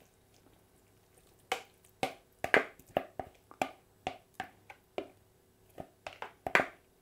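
Black plastic slotted spoon scraping and knocking against a plastic mixing bowl, a dozen or so sharp irregular clicks with wet dabs, as a tuna, sweetcorn and mayonnaise mixture is scraped out of the bowl into a pan of pasta.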